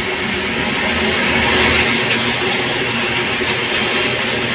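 CNC turning lathe running its cycle: the spindle and chuck spinning while a carbide insert turns a metal workpiece, a steady loud machine noise.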